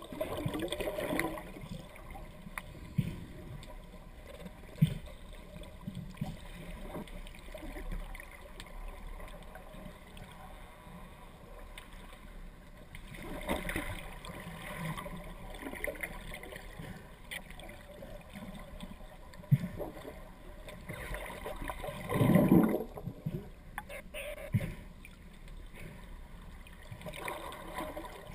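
Water rushing and gurgling around an underwater camera, swelling in louder surges about a second in, near the middle, about three-quarters through and near the end, with a few sharp knocks scattered between.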